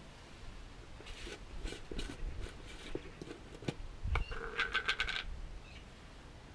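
Metal hand tools clinking and scraping as they are rummaged through on a garage floor, with a quick run of small metallic rattles about four seconds in.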